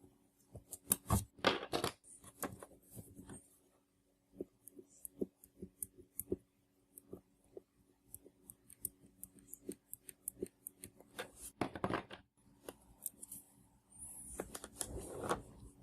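Small handling noises of a laptop keycap and an adhesive aluminium tape dot: many light clicks and taps, with a few short scratchy rubbing strokes (about a second in, near the middle-late part and near the end) as the dot is pressed and burnished onto the underside of the key.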